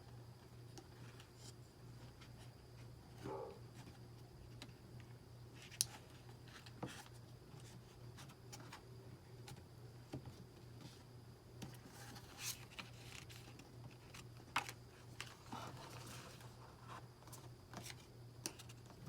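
Hands handling computer parts: scattered small clicks and brief rustles over a steady low hum, with two sharper clicks about six and fourteen and a half seconds in.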